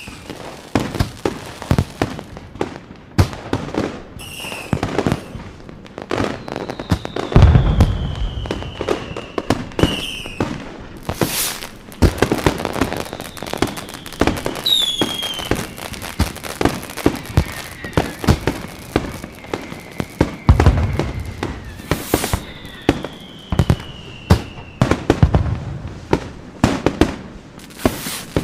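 Fireworks going off: a dense run of sharp bangs and crackling, with several whistles that slide down in pitch and heavier low booms about a quarter of the way in, and again about two-thirds and nine-tenths of the way through.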